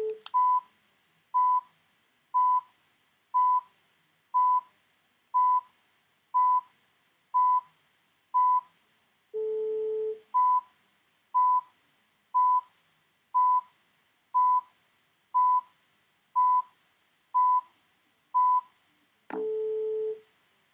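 Computer countdown beeps from PwnageTool's DFU-mode guide, timing the iPod's button presses: a short high beep once a second, with a lower, longer tone at the start, about ten seconds in and again near the end as each new step comes up. A sharp click sounds just after the start and again near the end.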